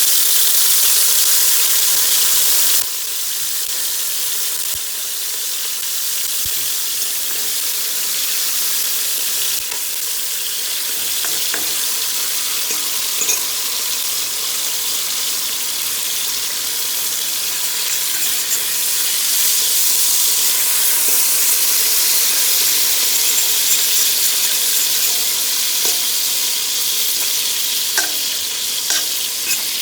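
Strips of pork frying in olive oil in a pot: a steady, high sizzle with a few small pops. It is louder for the first three seconds, then drops a step and holds steady.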